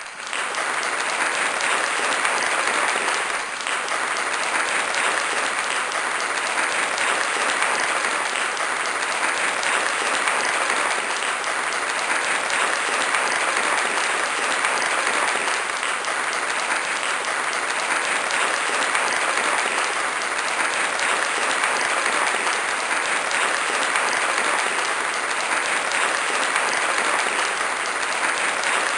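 Large audience applauding: a dense, steady wash of many hands clapping that starts at once and keeps on without letting up.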